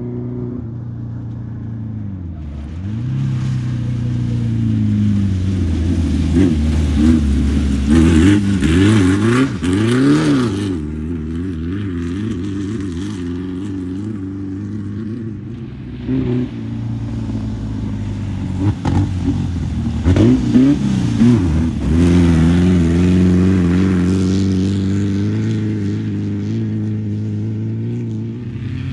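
Class 11 stock Volkswagen Beetle race cars' air-cooled flat-four engines running and revving, their pitch falling and rising again several times as they accelerate. Around the middle, two engines are heard at once at different pitches.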